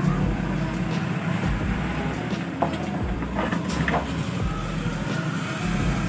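Steady low motor rumble, with a few light clicks and knocks in the middle.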